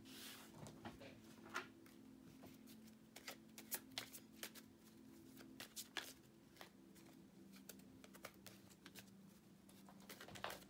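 Tarot cards being shuffled and handled, giving a faint, irregular scatter of sharp clicks and snaps over a steady low hum.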